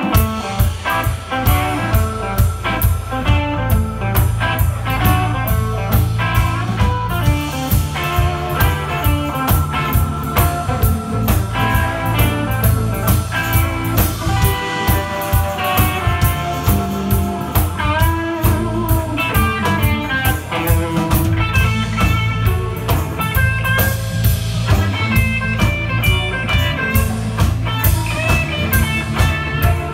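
Live blues band playing without vocals: electric guitar lines over bass guitar and a drum kit keeping a steady beat. The full band comes in sharply at the start.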